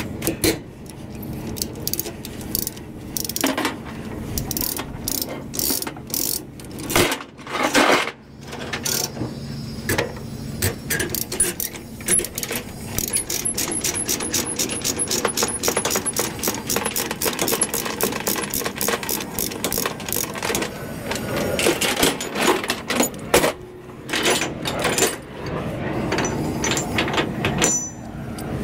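Steel tie-down chains clinking and clanking against each other and the trailer's deck, with a ratchet load binder cranked through a long run of quick, even clicks in the middle as the chain is drawn tight.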